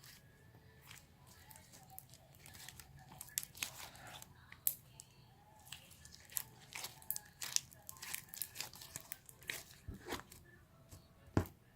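Slime being squished and stretched by hand, giving irregular crackling pops and clicks.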